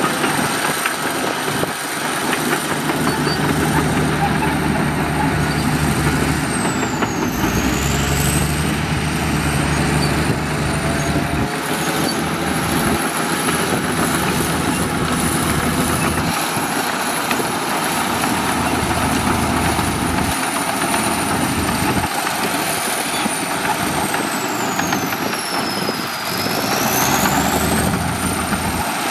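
Heavy diesel earthmoving machinery, a bulldozer and dump trucks, running continuously, the engine note rising and falling with load. A faint high whine dips in pitch twice.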